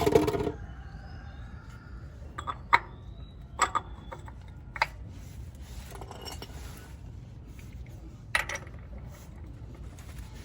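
Several sharp metallic clinks and knocks, about five spread out, as metal tools or parts are handled. The first, right at the start, is the loudest and rings briefly.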